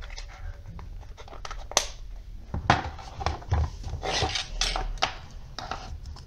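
Handling noise from a clear plastic project box with a bulb in its holder being picked up, turned and set down: irregular clicks, knocks and plastic rubbing and scraping, with the sharpest knocks about two seconds and nearly three seconds in.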